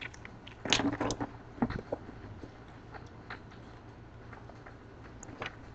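A person biting into and chewing a whole raw lemon, peel and all: a cluster of crunching bites about a second in, then scattered small chewing clicks.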